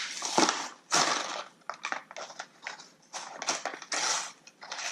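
Plastic packaging crinkling and rustling in uneven bursts as it is handled and pulled open.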